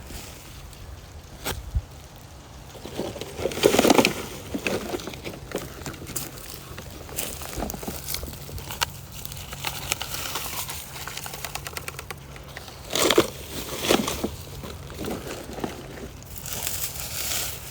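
Crinkling and crackling of litter being handled and stuffed into a bag, with scattered clicks and two louder bouts, about four seconds in and again about thirteen seconds in.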